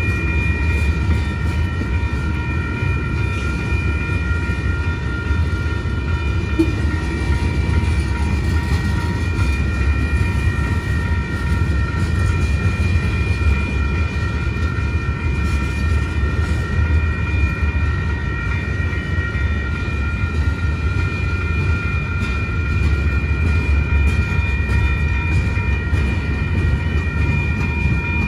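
Freight train's tank cars and boxcars rolling past a grade crossing: a steady low rumble of steel wheels on rail. Several steady high-pitched ringing tones run over the rumble throughout.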